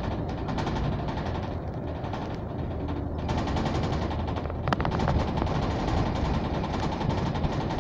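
Double-decker bus in motion heard from the upper deck: a steady low engine drone under a fast, dense rattle of the body and fittings, with one sharp knock a little past halfway.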